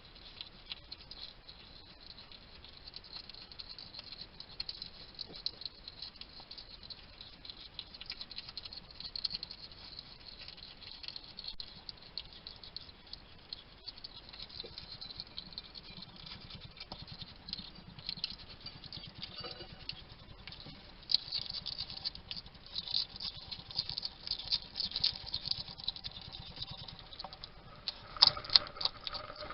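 European hedgehog eating: rapid, quiet clicking and smacking as it chews, getting busier and louder about two-thirds of the way through, with a couple of brief squeaky sounds near the end.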